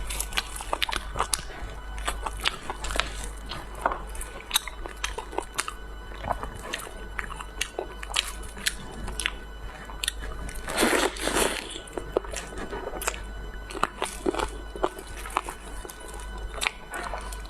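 Close-up eating sounds: a person biting and chewing crunchy food, with many short sharp crunches and one longer, louder crunch about eleven seconds in.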